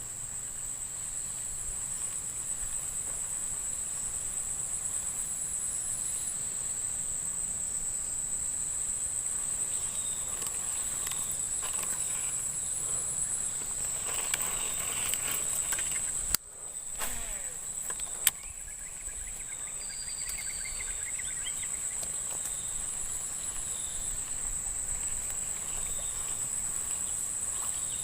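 Insects keeping up a steady, high-pitched shrill drone, with a second, higher tone cutting in and out every few seconds. Two sharp clicks about two seconds apart sound around the middle.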